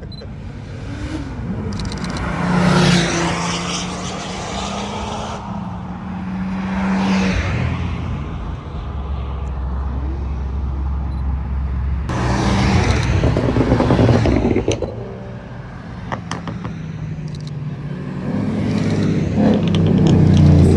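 Several car engines passing in turn, each swelling in and fading out, accelerating with stepped changes in pitch; the loudest passes come about three, thirteen and twenty seconds in.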